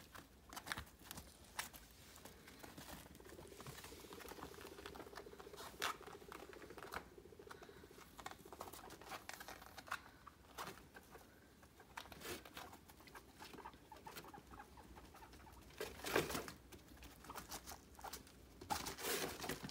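Guinea pigs pattering and rustling about on a puppy pad among cardboard boxes, with many small clicks and scuffs. A faint buzzing hum comes in for a few seconds, and a couple of louder bumps follow near the end.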